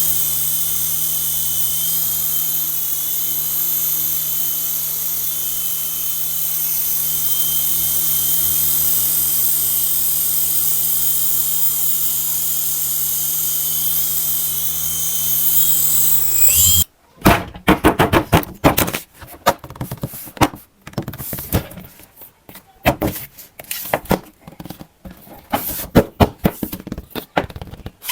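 Small electric motor of a toy RC helicopter whirring at a steady high pitch. About 17 seconds in it winds down quickly and stops, followed by a run of irregular clicks and knocks.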